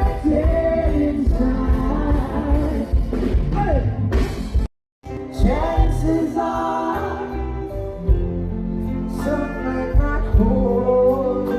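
Live reggae band playing with a singer's voice over bass and drums; the sound cuts out completely for a moment about five seconds in, then the music resumes.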